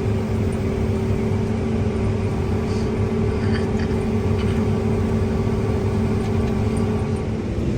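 Heavy diesel engine running steadily at a constant speed, with a few faint ticks about halfway through.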